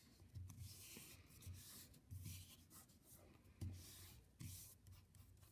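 Hands smoothing and pressing a glued painted-paper cutout flat onto a sheet of paper: faint, repeated short rubbing strokes of palm on paper, with a few soft bumps.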